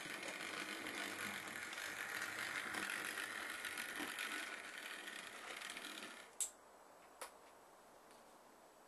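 Model railway locomotive running along the track, its motor and gears making a steady mechanical whirr that stops about six seconds in. Two sharp clicks follow, about a second apart.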